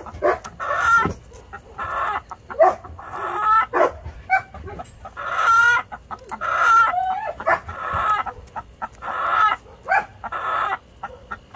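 A chicken clucking and squawking over and over, about one or two short calls a second, while it is held and its wing feathers are trimmed.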